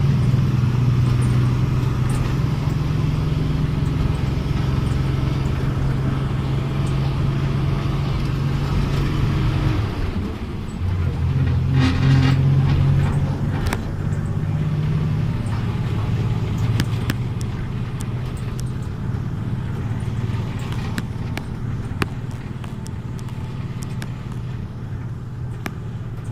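Diesel engine of a Volksbus 17.210 OD bus running with a steady low hum. Its note changes about ten seconds in, with a brief hiss a couple of seconds later. It then slowly gets quieter, with scattered light clicks.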